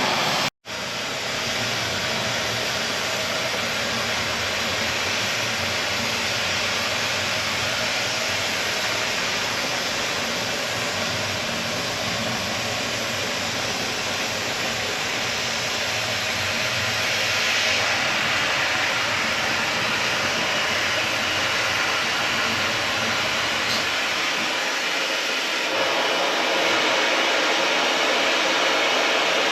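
Oxy-fuel cutting torch on a CNC cutting table, burning with a steady loud hiss while it preheats steel plate. The hiss briefly cuts out about half a second in, and a little past two-thirds through it turns harsher and thinner.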